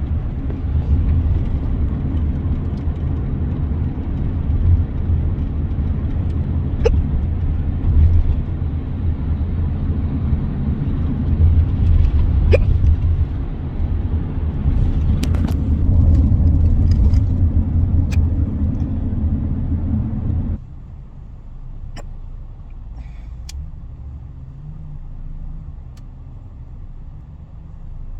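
Steady low rumble of a moving car heard from inside the cabin, dropping abruptly to a quieter hum about two-thirds of the way through. A few short, faint hiccups break in over it at scattered moments.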